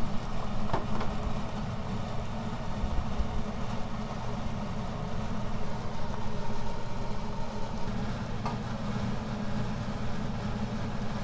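Marinated LA galbi (flanken-cut beef short ribs) sizzling and bubbling in their soy-based marinade in a frying pan, over a steady low rumble.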